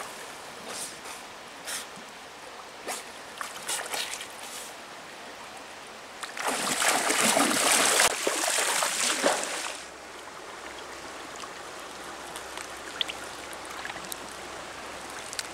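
Water splashing in a shallow river: light scattered splashes at first, then about three seconds of heavy splashing from legs wading fast through the water, over the steady run of the stream.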